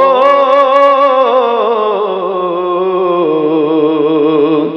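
A singer holding one long note of a Punjabi rubai, the pitch wavering in ornamented turns and sliding gradually downward, over a low steady drone. The voice fades out near the end.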